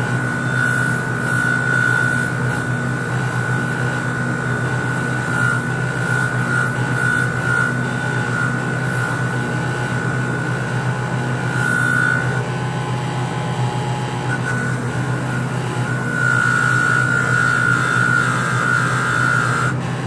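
Bench grinder running with a wire wheel scrubbing carbon off a Mazda 13B rotary engine rotor. A steady motor hum sits under a high whine and a scratchy brushing noise. The whine grows louder briefly past the middle and again for the last few seconds.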